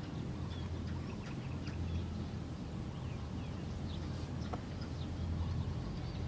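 Outdoor nature ambience: scattered short, high bird chirps and calls over a steady low rumble.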